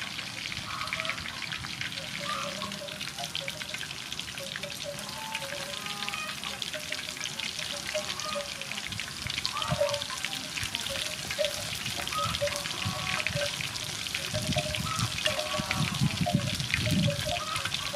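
Breaded chicken wings deep-frying in a wok of soybean oil: a steady, dense crackling sizzle.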